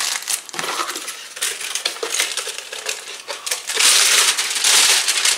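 Aluminium foil crinkling and crackling as it is pressed and handled, loudest in the last second and a half.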